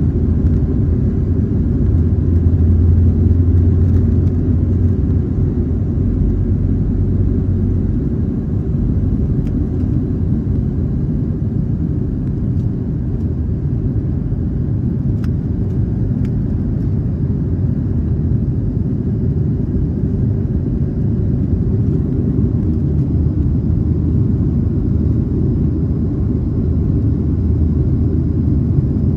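Jet airliner cabin noise during the takeoff run and climb-out: a loud, steady low rumble of the engines and runway, with a deep hum strongest over the first several seconds that then evens out.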